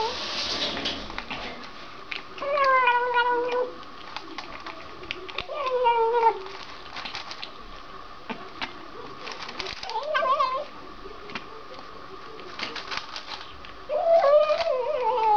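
Domestic cat giving four long, wavering, whiny meows while it eats, with short clicking chewing and lapping noises between the calls.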